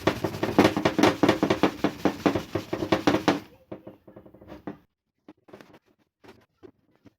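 A cloth buffing clear wax on a wooden stool, in fast back-and-forth rubbing strokes several times a second. The rubbing stops about three and a half seconds in, leaving a few faint light rubs and taps.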